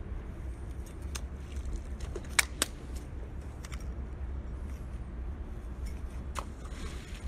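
Stones clicking against each other as they are handled and thrown: a few sharp clicks, the loudest two close together about two and a half seconds in, over a steady low rumble.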